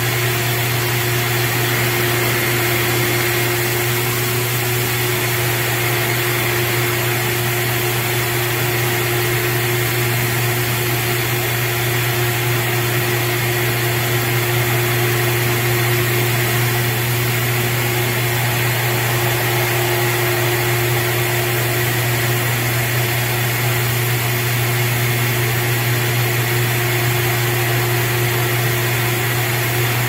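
Car mat washing machine running through its wash cycle on a mat inside it: a steady, loud motor hum with a thinner, higher whine above it.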